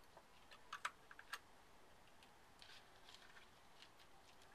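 Faint, scattered clicks and ticks of a small metal tool prying the plastic coupler box out of an HO-scale model locomotive, a few together about a second in and a few more around three seconds.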